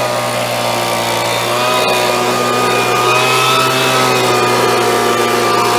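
Stihl BG75 handheld blower's small two-stroke engine running steadily, air rushing from the nozzle, its pitch rising slightly about a second and a half in.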